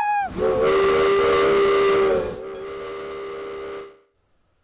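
Steam locomotive whistle blowing one long blast over a hiss of steam, several notes sounding together. It is loud for about two seconds, drops to a softer tail, then cuts off near the end.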